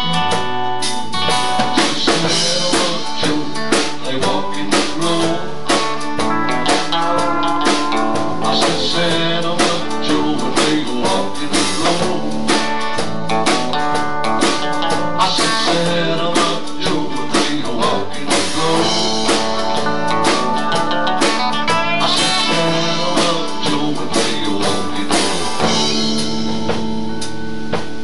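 Live country band playing: electric and acoustic guitars over a steady drum-kit beat.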